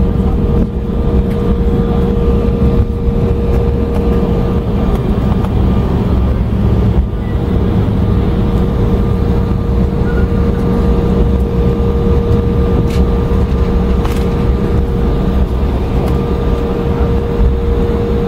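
Cabin noise of a jet airliner rolling out on the runway just after landing: a steady low rumble from the wheels and engines, with a constant hum running through it.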